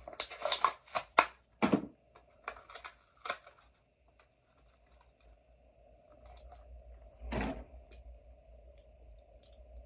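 A Hot Wheels blister card being torn open by hand: a quick run of sharp crackles and tears of plastic and cardboard, then quieter handling with one louder rustle about seven seconds in.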